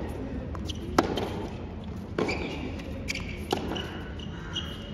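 Tennis rally on a hard court: three sharp pops of rackets striking the ball, about a second and a quarter apart, with quieter ticks of the ball bouncing in between.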